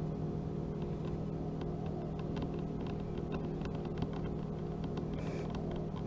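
Long fingernails tapping lightly and irregularly on bamboo, a scatter of small clicks over a steady low hum.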